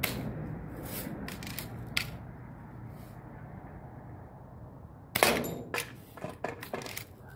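Daisy Red Ryder lever-action BB gun being shot at a steel target box: a few sharp clicks in the first two seconds, then about five seconds in a louder shot followed by a quick run of clicks and knocks.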